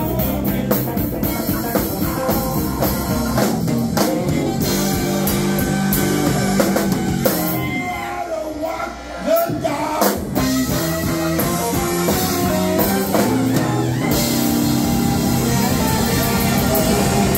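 Live band playing an R&B rock song on drum kit, electric guitars and saxophone, with singing. About eight seconds in the band drops back for a moment, then a loud hit brings it back in at full volume.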